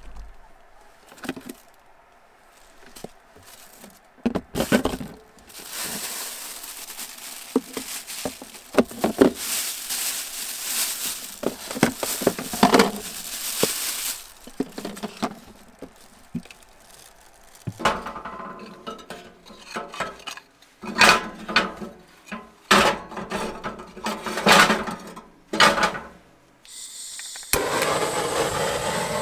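Items being handled in a portable compressor car fridge: a plastic bag of frozen meat crinkling for several seconds, then a run of knocks and clinks. Near the end a butane blowtorch is lit and runs with a steady rushing hiss.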